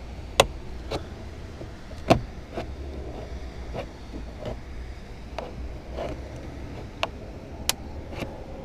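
Sharp plastic clicks and snaps, about ten of them spread unevenly, the loudest two near the start, as an orange plastic trim tool pries the rear door trim panel of a Seat Leon Mk3 off its retaining clips.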